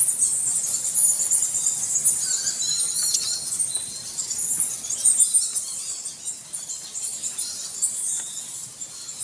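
Bats squeaking and chirping, many high-pitched calls overlapping without a break.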